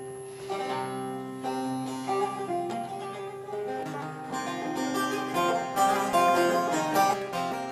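Three bağlamas (Turkish long-necked saz) playing an instrumental introduction together, a plucked melody over ringing strings. It starts with held notes and grows busier and louder about halfway through.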